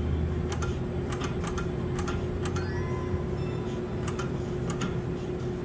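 Pennsylvania Skills game machine ticking out its reel-spin sound effects: a run of irregular sharp clicks over a steady electronic hum, with a short rising electronic chime about two and a half seconds in.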